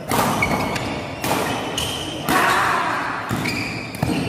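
Badminton rally: five racket strikes on the shuttlecock about a second apart, each ringing in the hall, with short squeaks of court shoes between them.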